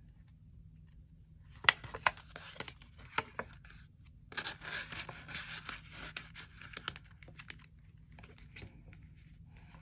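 Paper rustling and crinkling as banknotes and paper envelopes are handled, with a few sharp taps in the first few seconds and the steadiest rustling around the middle.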